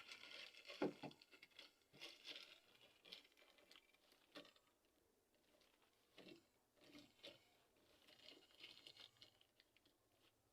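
Near silence with faint, scattered rustles and light knocks, the loudest a sharper knock about a second in.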